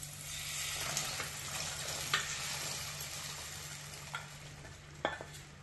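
Cooked white peas tipped from a steel pressure cooker into a hot clay pot of fried masala, sizzling with a steady hiss. A few sharp knocks come from the wooden spoon scraping the peas out.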